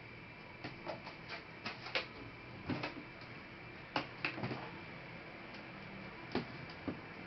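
Irregular small clicks and knocks from a laptop being taken apart by hand: parts and tools being handled. They come thickly in the first few seconds, then two more near the end.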